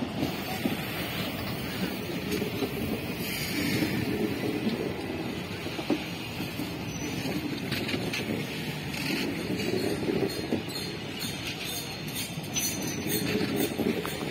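Indian Railways passenger coaches rolling past at slow speed: a steady rumble of wheels on the rails that swells and fades in repeated waves, with scattered faint clicks.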